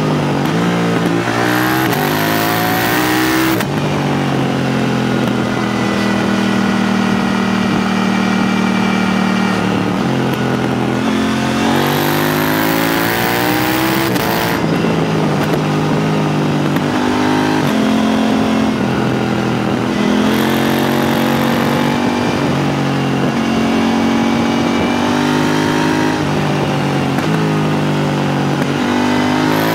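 KTM 890 Duke R's parallel-twin engine through an HP Corse Evoxtreme 310 exhaust with its dB killer fitted, heard from the rider's seat while riding: its pitch climbs under throttle, drops sharply at gear changes and when the throttle closes, and holds steady on cruising stretches. There is a sharp drop about three and a half seconds in and another about ten seconds in, each followed by a fresh climb.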